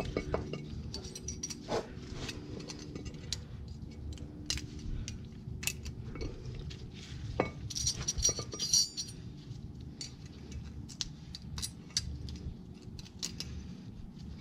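New metal brake-pad clips clinking and clicking against a steel caliper bracket as they are pressed into place by hand: a scatter of small sharp clicks, busiest about eight seconds in.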